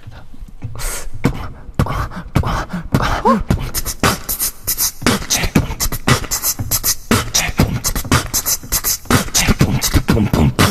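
Human beatboxing: a fast, dense run of mouth-made drum hits and clicks, with a few short pitched vocal sounds mixed in.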